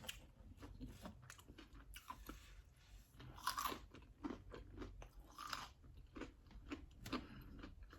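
A person chewing and biting food close to the microphone, with faint, irregular crunchy clicks and mouth sounds. Two louder smacks come about three and a half and five and a half seconds in.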